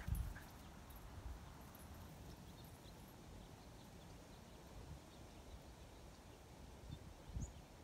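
Quiet outdoor ambience: a faint low rumble, with a couple of soft thumps near the end.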